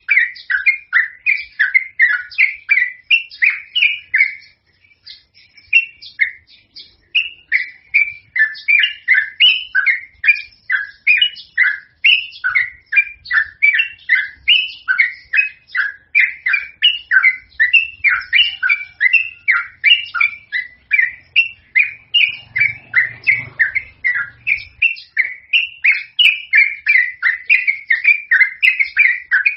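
Yellow-vented bulbul (trucukan) singing a long, lively run of short bubbly chirps, about three to four a second, broken by one pause of about two seconds near the start.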